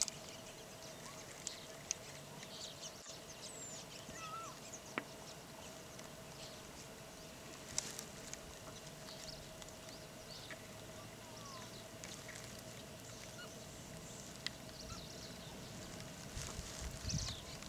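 Quiet open-bush ambience: scattered short bird chirps and whistles over a steady faint hum, with a brief low rumble near the end.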